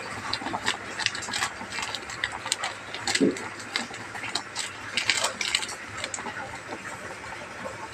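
Soup boiling in a wide cooking pan, with a steady bubbling hiss and many irregular small clicks and pops. There is a brief low sound a little past three seconds in.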